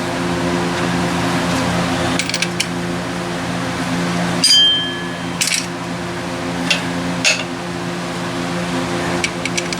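Wrenches and loose metal parts clinking against the engine while accessory brackets are unbolted. The loudest clink, about halfway through, rings briefly like struck steel. A steady mechanical hum runs beneath.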